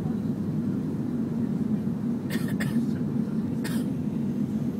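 Steady low cabin noise of a Lufthansa Airbus A380 climbing out after takeoff: its Rolls-Royce Trent 900 engines and the airflow, heard from inside the cabin. Over it, a few short sharp noises: two close together a little past two seconds in, and one more about a second later.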